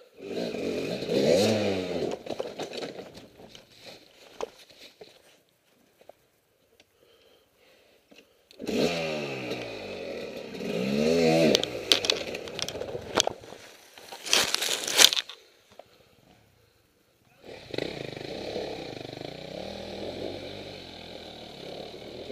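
KTM dirt bike engine revving hard in bursts, its pitch sweeping up and down, then falling silent for several seconds before running again. A couple of loud, sharp noises come about two-thirds through, and the engine runs more steadily near the end.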